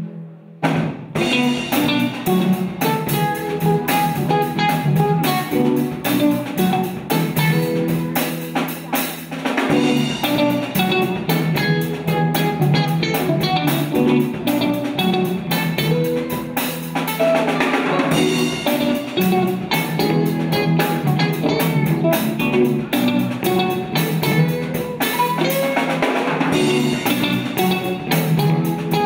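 Live rock band playing: two electric guitars, electric bass and a drum kit, with the full band coming in together about a second in.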